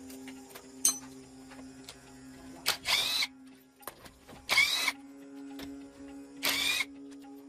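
Three short bursts of a power tool, each about half a second long, spaced about two seconds apart, over quiet background music.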